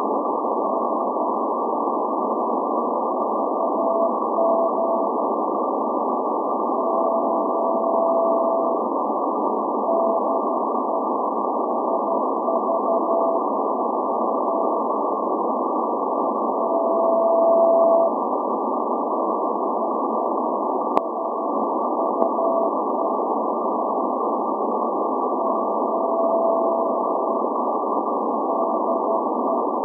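Morse code from the Greek maritime coast station SVO on 8424 kHz, heard through a shortwave receiver in CW mode: a tone of about 700 Hz keyed in dots, dashes and some long held tones, under a steady hiss of shortwave band noise. A single sharp click comes about 21 seconds in.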